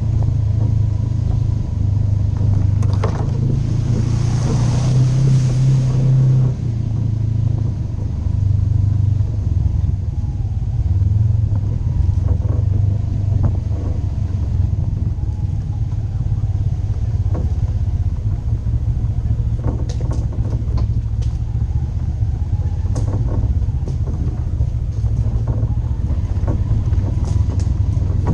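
Polaris RZR 900 side-by-side's engine running as it drives a rough trail, its pitch rising and falling with the throttle. Scattered knocks and rattles run through it, with a brief hiss a few seconds in.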